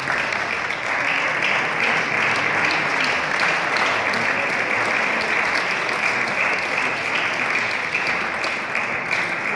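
Spectators clapping steadily after a table tennis rally.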